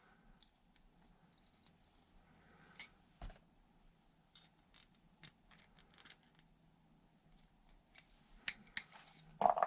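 Scattered light metallic clicks and snips from a Ganzo G302-B multitool's pliers being worked by hand. A few sharper clicks come close together near the end.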